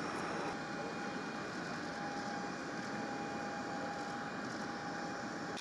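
Steady rushing noise of a jet aircraft's turbine running on the apron, with a high steady whine held over it.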